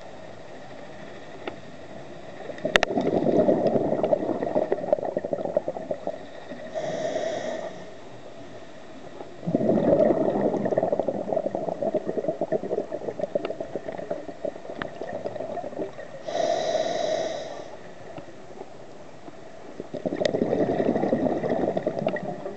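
Scuba diver breathing through a regulator underwater: three long bursts of exhaled bubbles, each lasting three to five seconds, starting about 3, 10 and 20 seconds in. Before the second and third bursts comes a short hiss of inhalation through the regulator. There is a single sharp click about 3 seconds in.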